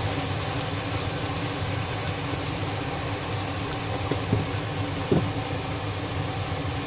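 Steady hum and hiss of a running fan, with a few faint knocks about four and five seconds in.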